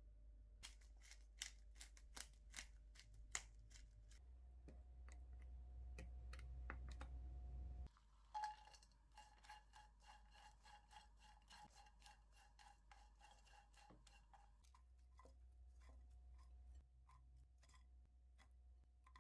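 Faint clicks and scrapes of a wooden spoon against a ceramic bowl while stirring a thick seasoning sauce. After a sudden change about 8 s in come soft taps and scrapes of a wooden spatula stirring dried anchovies in a dry nonstick wok, under a faint steady high whine.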